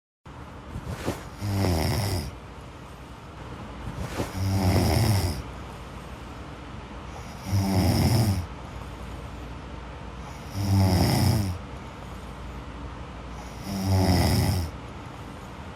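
A sleeping man snoring loudly in deep sleep: five snores about three seconds apart.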